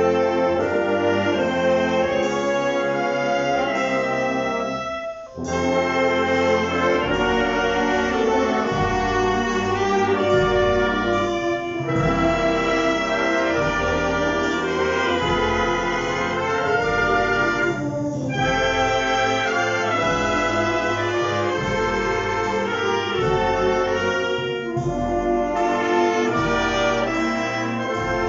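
Concert wind band playing live, with brass to the fore. The music breaks off briefly about five seconds in, then resumes over a steady low beat in the bass, about one a second.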